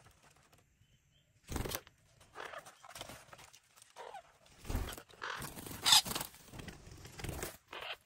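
Irregular scratches, knocks and rustles from green parakeets clambering on tree bark and working at a nest hole in the trunk, with the loudest scrape about three-quarters of the way through.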